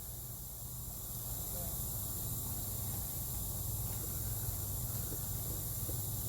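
Steady high hiss with a low hum underneath: background noise with no distinct event.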